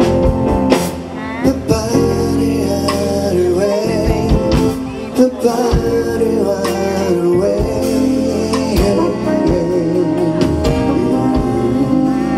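Band music: a song with drums, bass and keys or guitar, and a voice singing without recognisable words over it.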